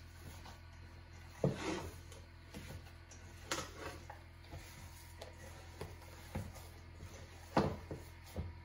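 Hands mixing raw ground-meat pelmeni filling in a stainless steel bowl, with a few sharp knocks of hand and bowl, the loudest about a second and a half in and near the end.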